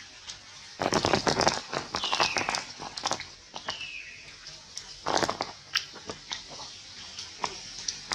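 Leaves and twigs rustling and crackling in a tree as macaques move through the branches, loudest in two bursts about a second in and about five seconds in. Between them come two short, high squeaks that fall in pitch, typical of a baby macaque's whimpering call.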